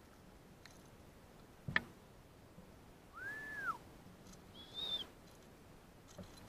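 A sharp knock, then two whistled notes: one rising and falling back over most of a second, then a shorter, higher one.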